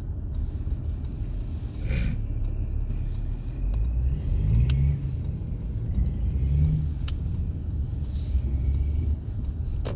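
Car driving on a city road, a steady low rumble of engine and tyres heard from inside the cabin, with a few light clicks.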